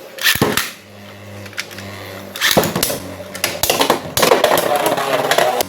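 Beyblade X spinning tops launched into a plastic stadium: a sharp snap at the launch, a low steady hum of the spinning tops, then rapid clattering as they strike each other and the stadium walls.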